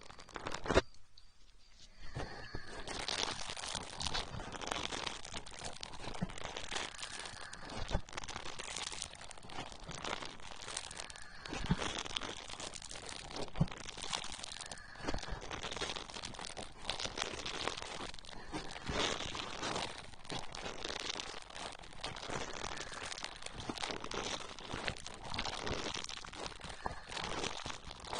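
Aloe vera gel being rubbed and massaged over a binaural microphone's ears: a continuous crackling, squishing friction texture full of small clicks, with a short pause about a second in.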